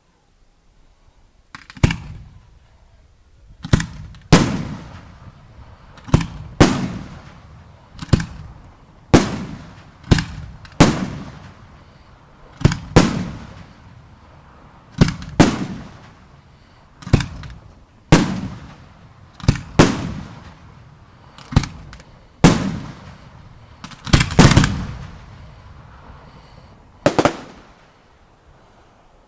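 Fireworks display: aerial shells bursting in a string of some twenty loud booms, roughly one a second, each fading away in a rumbling echo.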